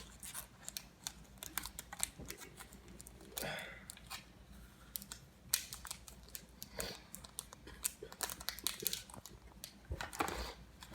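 Scattered light clicks and taps, with a few brief rustles, from a small electronics box's plastic and cardboard packaging and parts being handled.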